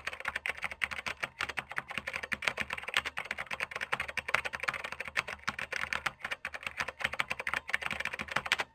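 Computer keyboard typing sound effect: a rapid, continuous run of key clicks that cuts off suddenly near the end.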